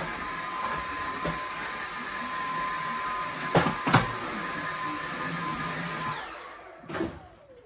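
Stick vacuum cleaner running steadily with a high whine, with two sharp knocks about four seconds in. It is switched off about six seconds in, its motor winding down, and a knock follows.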